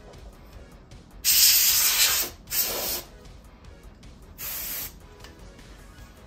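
Canned compressed-air duster sprayed through its straw in three blasts of hiss, the first about a second long, the next two shorter, blowing dust out of a CRT television's circuit boards.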